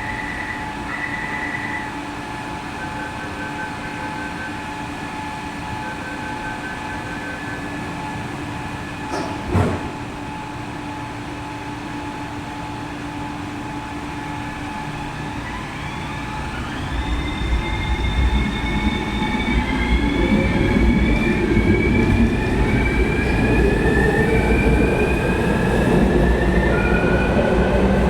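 New Taipei Metro Circular Line train starting to leave the station: two runs of quick electronic beeps over a steady hum, and a sharp knock about a third of the way in. In the last third the train pulls away, its traction motors whining in stepped rising tones over a growing rumble as it accelerates.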